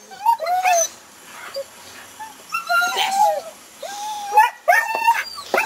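A dog whining and yelping in high, arching cries, in three spells of calls.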